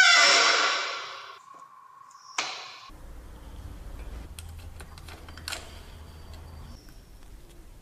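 A loud, high-pitched disc brake squeal with several tones, fading out over the first second or so. Then faint clicks and ticks of a hex key turning the mounting bolts of a Shimano disc brake caliper, over a low hum.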